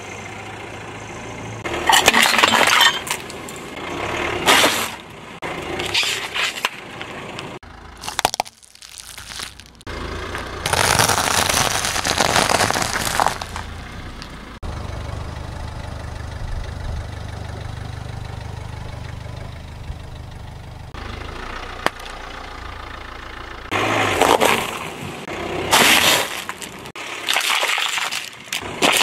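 A car tyre rolling over and crushing dry crunchy snacks (flower-shaped corn puffs, then round crackers) on asphalt, heard as several bursts of crackling crunches. A low, steady car engine hum runs beneath the middle stretch.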